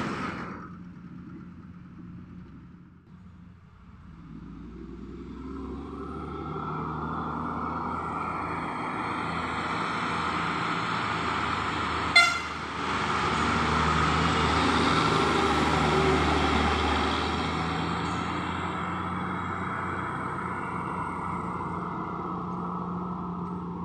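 A heavy transport truck's diesel engine grows steadily louder as the truck comes round the bend and passes, then slowly fades away. It gives one short horn toot about halfway through. At the very start, the tail of an earlier horn blast cuts off.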